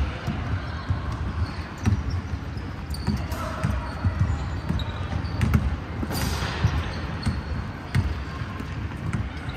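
Basketballs bouncing on a hardwood gym floor, a series of irregular dull thuds in a large echoing hall, with players' voices in the background. A short rushing noise about six seconds in.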